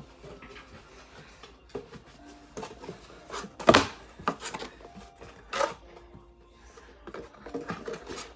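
Cardboard box being handled: its flaps rustling and scraping, with a few sharp knocks, the loudest about three and a half seconds in.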